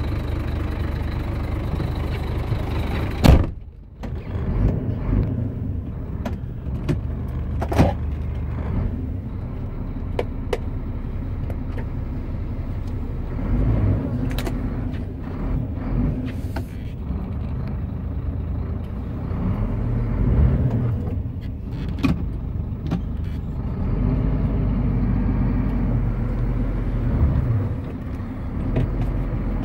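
Scania 114G 380's 11-litre six-cylinder diesel heard from inside the cab as the truck moves slowly, its note swelling and easing several times. There are several sharp clicks and knocks, the loudest about three seconds in, after which the sound briefly drops away.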